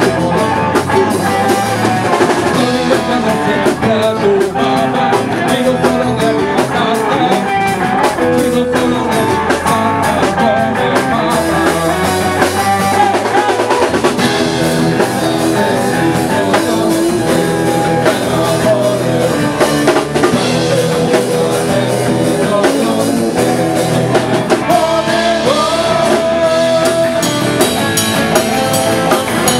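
A small rock band playing a song: a man sings into a microphone over a strummed acoustic guitar, electric bass and drum kit.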